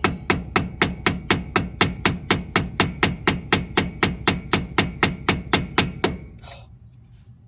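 Rapid, even hammer blows, about four a second, on a tool set in the groove of a stuck nut that has just started to turn loose. The blows stop suddenly about six seconds in.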